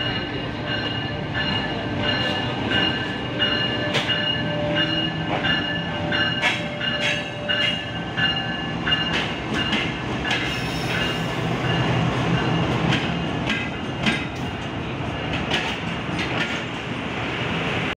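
A GE GEU-40 diesel-electric locomotive and its passenger coaches arriving and rolling slowly past, with a steady high wheel squeal that fades about halfway through. Wheels clack over the rail joints through the second half.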